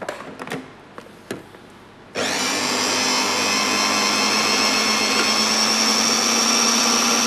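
Small electric blender switching on about two seconds in and running steadily at one speed, pureeing pumpkin soup; a few light handling clicks before it starts.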